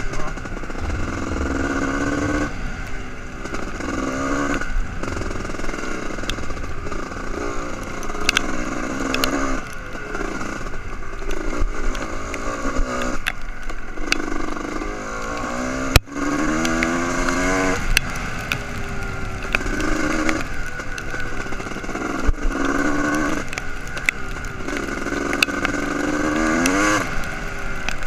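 Honda CR250R's single-cylinder two-stroke engine under way on a dirt trail, revving up and dropping back over and over as the throttle is worked through the gears. Scattered clicks and knocks ride over it, with one sharp knock about halfway through.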